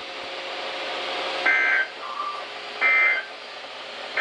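Weather radio broadcast sending the EAS end-of-message data bursts that close a warning: short, shrill two-tone digital chirps, each about a third of a second, over radio hiss. Two come about 1.3 s apart, and a third starts right at the end.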